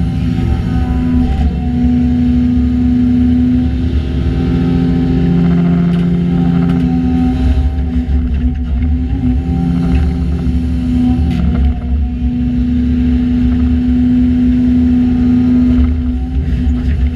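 Hyundai Robex LC220-9A excavator's diesel engine running steadily under working load, its note shifting up and down every few seconds as the hydraulics work, with a few faint knocks.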